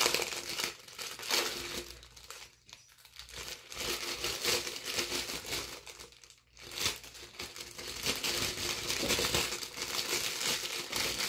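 Thin plastic packaging crinkling as a small item is handled and unwrapped by hand, in irregular bursts with brief lulls about two and a half and six and a half seconds in.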